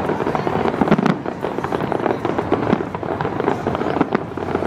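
Aerial fireworks going off in a dense barrage: many sharp bangs and crackles overlapping in quick succession.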